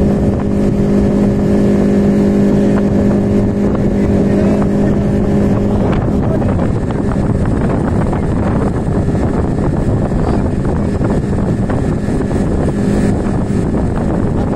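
Speedboat engine running steadily while the boat is under way, a steady hum over rushing wind on the microphone. About six seconds in the engine note grows less distinct and the wind noise dominates.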